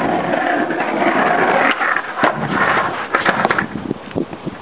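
Skateboard wheels rolling on concrete, then sharp clatters about two seconds in and a quick run of knocks a second later as the board and the skater hit the ground in a fall.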